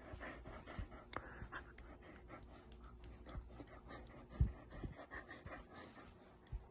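A dog panting faintly, with small mouth clicks, and one soft low bump about four and a half seconds in.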